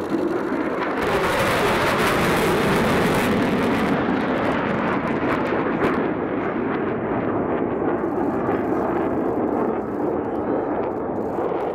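Jet noise from a pair of twin-engine F/A-18 Hornet fighters flying low past: a loud, steady roar, with a strong high hiss that fades after about four seconds while the deeper rumble goes on.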